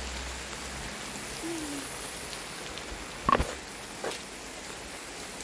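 Steady rain falling, with a sharp knock about three seconds in and a fainter one just under a second later.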